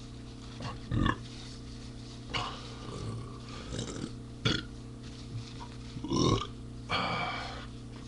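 A man burping repeatedly: a string of short belches, the loudest about a second in and a longer one around six seconds in.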